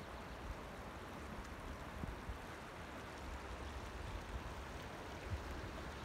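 Steady rushing of the Firehole River's shallow flowing water, with low wind buffeting on the microphone.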